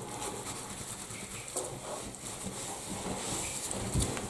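A towel rubbing and scrubbing over a wet cat's fur in a run of short, repeated strokes, with a soft knock near the end.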